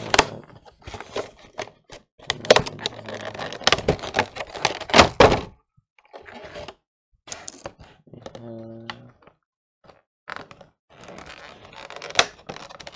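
Stiff clear plastic packaging being handled and pried out of a cardboard collection box: clusters of sharp clicks, crinkles and knocks, with pauses between them and a brief low hum about two thirds of the way through.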